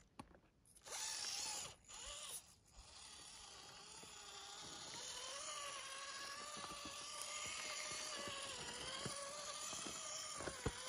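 Axial SCX24 1/24-scale RC crawler's small electric motor and gear train whining as it crawls over rock. It comes in two short bursts at first, then runs steadily from about three seconds in, the pitch wavering slightly with the throttle, with scattered light clicks.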